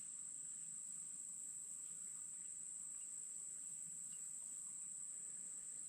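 Insects calling steadily in the woods: one faint, high-pitched, unbroken drone.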